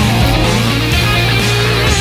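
Heavy rock music with electric guitar, dense and evenly loud.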